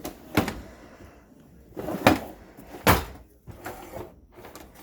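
A few sharp knocks and thuds, the loudest about two and three seconds in, with fainter ones between.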